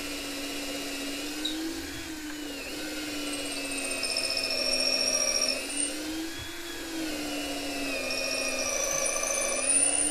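Cordless drill boring a 1/4-inch pilot hole deep into the end of a wooden handrail: a steady motor whine whose pitch rises and dips a few times as the bit works in.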